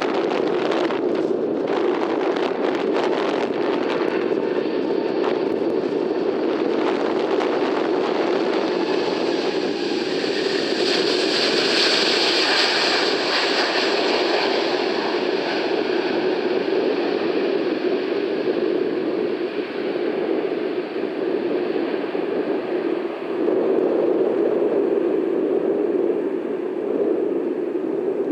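Jet airliner passing close by: the engine noise swells to its loudest about twelve seconds in and then slowly fades, over a steady low rumble.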